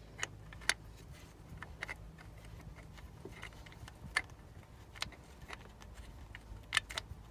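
Scattered light clicks and taps as a new timing chain guide and its bolt are handled and fitted by hand inside an engine's timing case, over a faint steady low hum.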